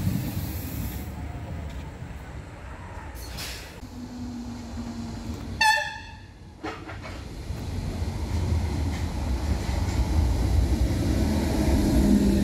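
DART electric trains: one pulling away with its rumble fading, a short horn toot about halfway through, then another train approaching and running into the platform, its low rumble growing steadily louder, with a low steady motor hum near the end.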